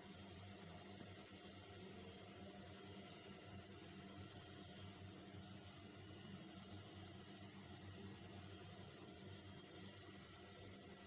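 An insect trilling: one continuous high-pitched trill with a fast, even flutter that does not let up, over a faint low hum.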